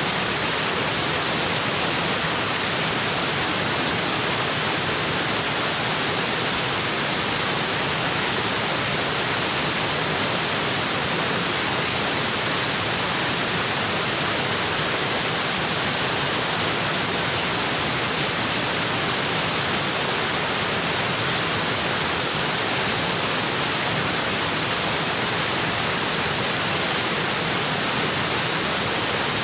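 Waterfall: water falling onto rocks with a steady, dense rushing, unchanging throughout.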